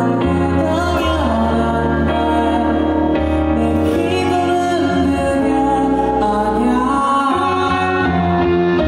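A live song: a male singer singing into a microphone over instrumental accompaniment, with sustained bass notes that change every second or two.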